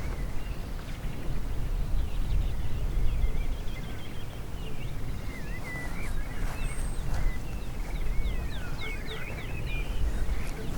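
Songbirds calling and singing: a quick run of short high chirps, then twisting, warbling phrases, over a low rumble of wind on the microphone.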